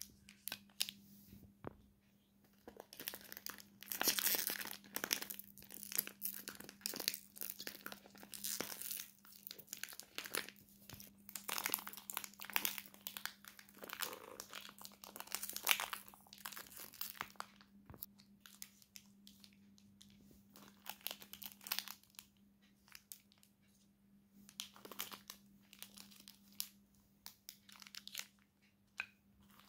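Plastic chocolate-bar wrappers crinkling as they are handled and shifted about, in irregular crackles that are busiest through the first half and sparser later. A steady low hum runs underneath.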